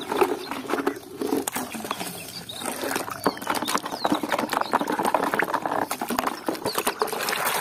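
Thick muddy water sloshing and squelching as a hand scrubs plastic toy trucks in a basin, with irregular clicks and knocks of plastic on plastic.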